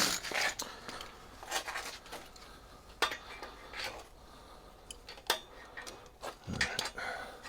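Scattered metallic clinks and taps of hand tools and metal parts being handled, with a few sharper knocks about three, five and seven seconds in.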